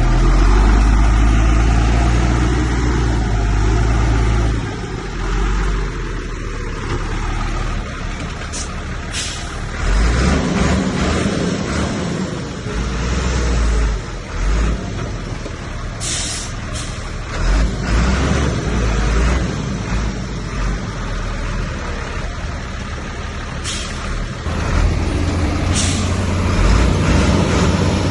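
Heavy diesel earthmoving machinery running and working under changing load, a deep rumble that swells and eases, with several short, sharp hisses in the second half.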